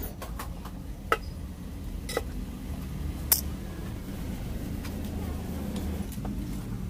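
Three sharp metallic clinks about a second apart, from a T-bar socket wrench and bolts being worked on a motorcycle's clutch pressure plate, over a steady low hum.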